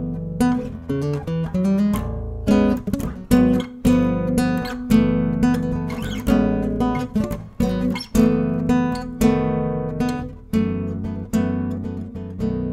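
Acoustic guitar music: strummed and plucked chords with sharp note attacks, played over the end card.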